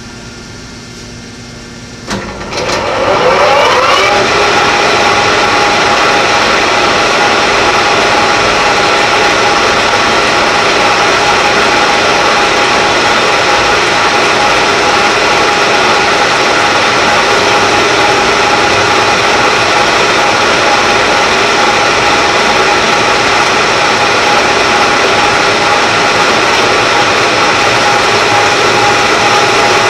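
Harrison 21x60 centre lathe starting up: a lower hum for the first two seconds, then the spindle runs up with rising pitch, about two to four seconds in. It then runs steadily and loudly, with a steady whine over a rushing noise.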